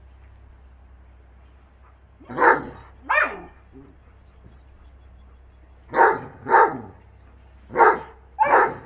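A dog barking during rough play: six short barks in three pairs, the first pair about two seconds in, the next near the middle, the last near the end.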